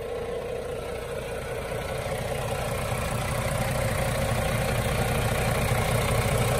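Volvo D11 six-cylinder diesel engine of a Volvo B11R bus chassis running at a steady idle, growing gradually louder.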